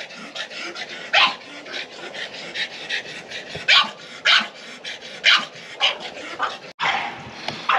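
Several dogs in kennels giving five or six short, sharp barks at uneven intervals, with panting between them.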